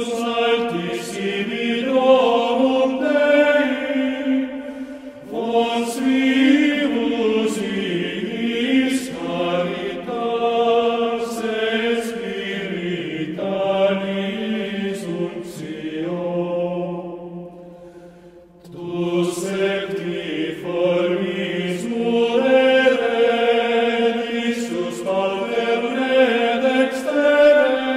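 Background music of a choir chanting: long, sustained sung phrases, with a brief break about two-thirds of the way through before the voices come back in.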